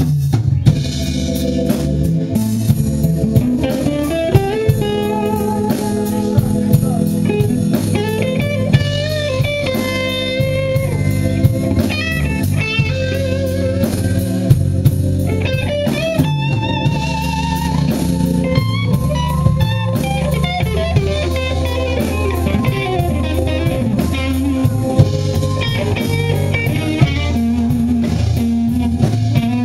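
Live band playing instrumental music: an electric guitar carries a melody of bent, wavering notes over bass, keyboards and drums keeping a steady beat.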